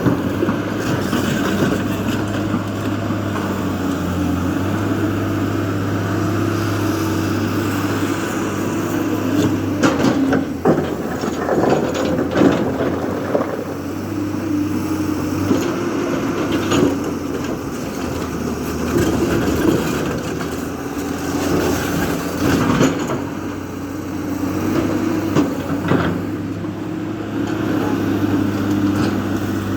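JCB 3DX backhoe loader's diesel engine running under load, its note rising and falling as the machine works, with a few sharp knocks and clatters, most around a third of the way in.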